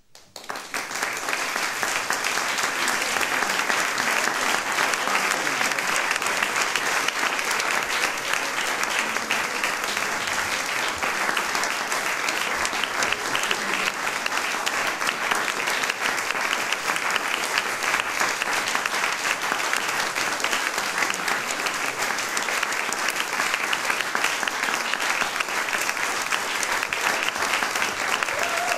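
Audience applause in a concert hall, breaking out sharply and then keeping up steadily as a dense mass of clapping.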